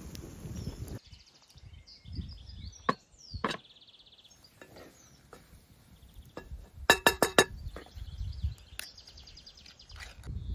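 Birds chirping and trilling, with two sharp knocks about three seconds in and, loudest, a quick run of about five ringing metallic clinks a little after halfway.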